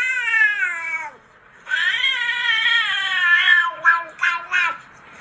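A cat meowing in long, drawn-out calls while being brushed with a grooming comb. The first call falls in pitch, a longer one follows a moment later, and three short calls come near the end.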